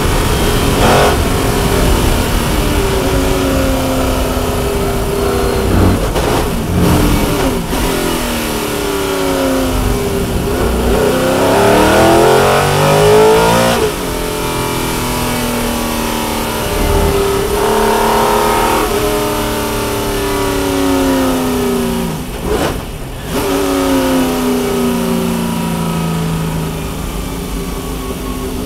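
Lola T70 Mk3B's Chevrolet V8 race engine heard from inside the cockpit on track, its pitch repeatedly climbing under acceleration, dropping sharply at upshifts, and falling away as the car brakes into slow corners.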